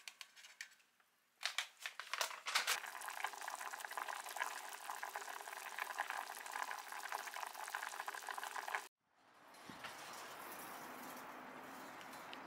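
Oden broth boiling in a hammered aluminium saucepan: a steady bubbling with many small pops, starting about a second and a half in after a few faint clicks. It cuts off suddenly about nine seconds in and gives way to a steady, quieter outdoor background hiss.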